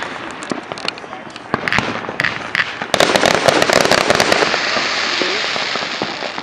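Fireworks bursting and crackling: scattered sharp pops, then a dense volley of crackles about three seconds in, dying into a fading hiss.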